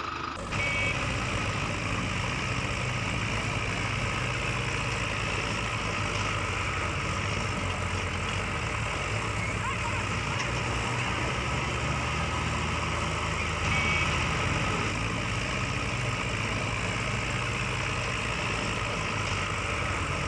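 A motor-vehicle engine running steadily at idle, cutting in abruptly about half a second in.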